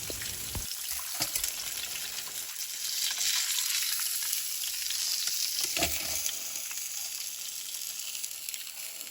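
Hot cooking oil sizzling steadily around pieces of tuna frying in a pan, with a few light knocks now and then.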